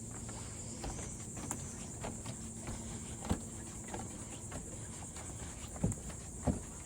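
Steady high-pitched drone of insects chirring, with three sharp thumps in the second half, the last two the loudest.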